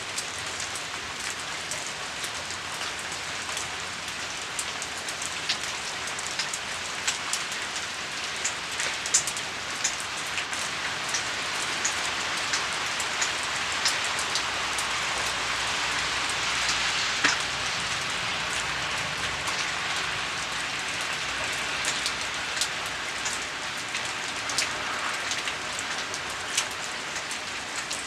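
Food frying in hot oil in a pan: a steady sizzle with sharp crackles and pops scattered through it.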